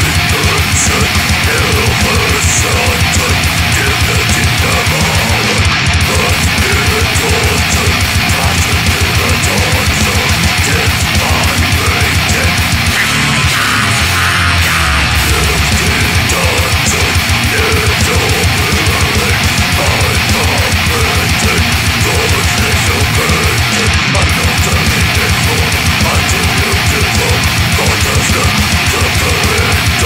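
Death metal recording: heavily distorted electric guitars over very fast, dense drumming. The fast low drum strokes drop out briefly around the middle, then resume.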